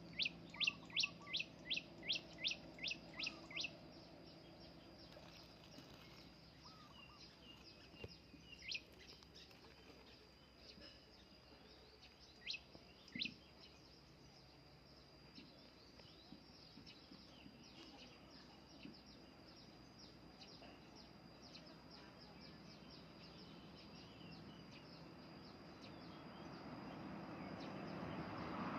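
A bird calling in a rapid series of about a dozen sharp, sweeping notes, about three a second, then a few single notes, over a steady high-pitched insect drone. A rushing noise swells near the end.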